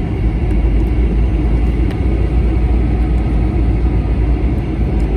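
Steady low rumble of cabin noise inside an Airbus A321-200 airliner as it lands, with a few faint rattles.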